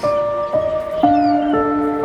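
Background music: sustained held notes, with the melody stepping to a new note about every half second.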